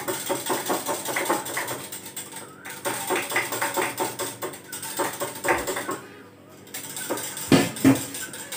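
Spoon stirring sharbat in a glass jug, clinking quickly and repeatedly against the glass. It pauses briefly about six seconds in, then two louder knocks come near the end.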